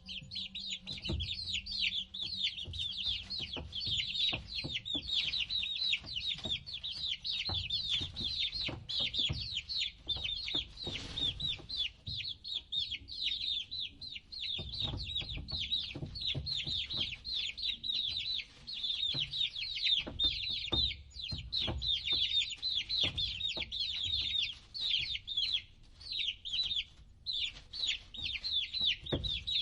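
A brood of baby chicks peeping without pause: many short, high, downward-sliding peeps overlapping one another, with scattered soft low thumps underneath.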